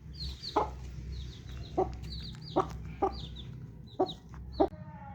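Mother hen clucking in six short, separate clucks, while her chicks keep up a run of high, falling peeps.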